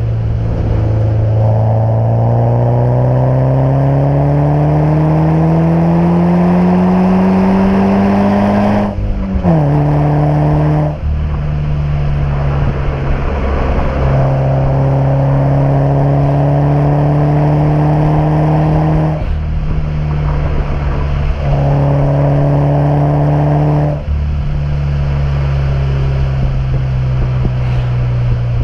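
Car exhaust recorded right at the tailpipe while driving: the engine note climbs steadily for about nine seconds, drops abruptly at a gear change, then holds a steady drone while cruising and falls away near the end as the car slows.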